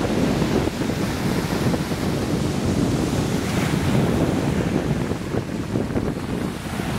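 Small sea waves breaking and washing up a sandy beach, with wind buffeting the microphone throughout.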